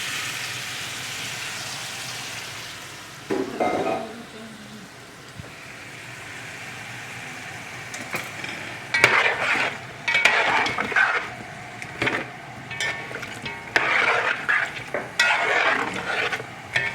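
Browned oxtail in a hot pan sizzling after water has gone in, the sizzle fading over the first few seconds. From about eight seconds in, a utensil scrapes and stirs against the pan in repeated strokes.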